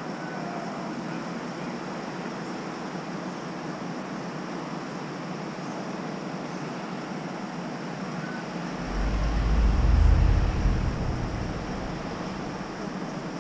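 Steady outdoor traffic noise, with a low rumble that swells about nine seconds in and fades away over about three seconds.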